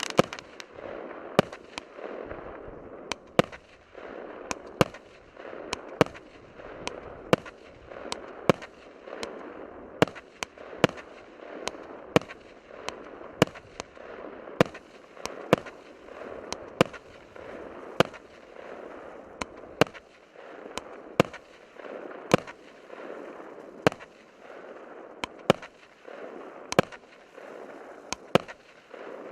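Red Fox D7505 firework battery (cake) firing shot after shot: a steady run of sharp bangs, roughly one or two a second, with a continuous hiss between them.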